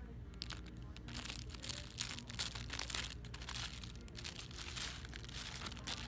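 Irregular crinkling and rustling, as of something being handled or rubbed close to the microphone, heaviest in the middle seconds, over a low steady hum.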